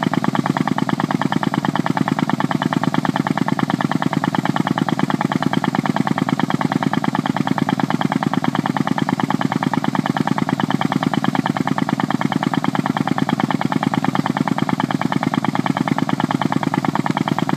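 The 65 mm prototype machine running steadily, with a rapid, even pulsing beat that does not change.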